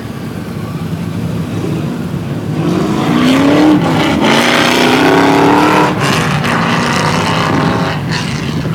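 A race car's engine revving hard as it passes close, its pitch climbing from about two and a half seconds in, loudest for the next three seconds with a brief drop and climb again, then falling away at about six seconds.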